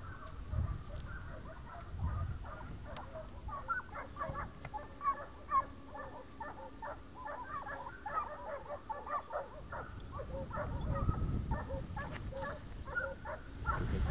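A faint chorus of many short, overlapping animal calls, thickest through the middle, with a few low thumps of handling noise near the start.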